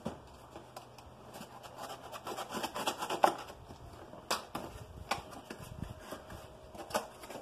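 Utility knife cutting the tape on a small cardboard box, then the cardboard flaps being worked open: scratchy rustling with a few sharp clicks.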